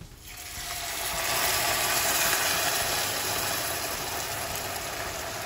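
Hot water poured into a pan of erişte noodles toasted in hot oil and butter, which hisses and bubbles up hard. The hiss builds over the first two seconds, then holds steady.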